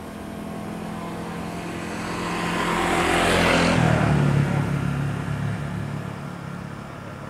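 A motor vehicle passing close by: its engine and rushing noise swell to a peak about three and a half seconds in, the engine note drops in pitch as it goes past, then it fades.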